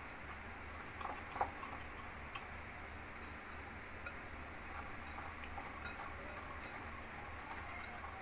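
Wire whisk beating ghee and powdered sugar into a creamy paste in a ceramic bowl: soft, steady swishing with a few light clicks of the wires against the bowl, the clearest about one and a half seconds in.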